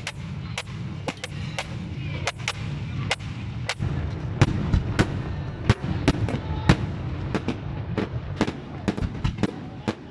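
Fireworks display: a fast run of sharp bangs and cracks from bursting aerial shells, several a second, over a low steady rumble. The rumble drops away near the end.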